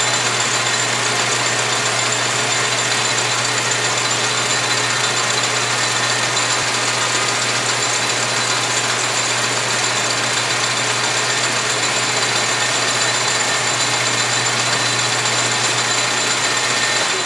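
South Bend 10-inch Heavy lathe running steadily, a constant hum with a high whine, while its carriage is power-fed through a light taper cut.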